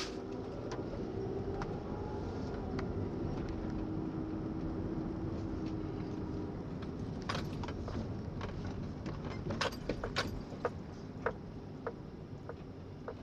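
Car cabin rumble from a moving vehicle, with a steady hum through the first half. From about seven seconds in comes a scatter of sharp clicks and small taps, strongest around ten seconds.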